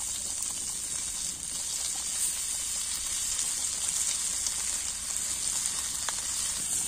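Masala-coated fish shallow-frying on a cast-iron tawa, a steady high sizzle.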